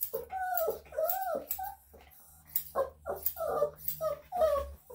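A Bichon/Shih Tzu cross dog vocalising: two drawn-out calls that rise and fall in the first two seconds, then a quicker run of short calls. Grooming scissors snip through her tail hair at the same time.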